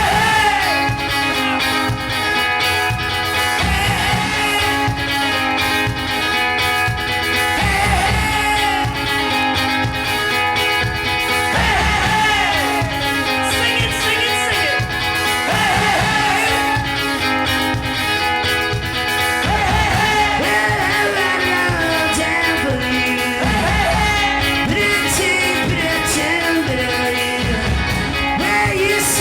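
Live rock band playing a song, with sung vocals and guitar over a steady drum beat.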